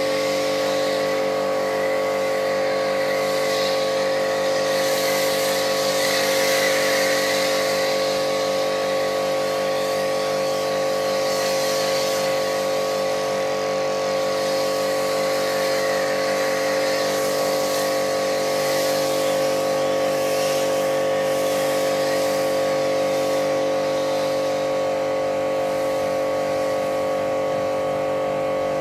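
Pressure washer running steadily while spraying snow foam, a constant motor-and-pump hum under the hiss of the spray, cutting off suddenly at the end as the trigger is released.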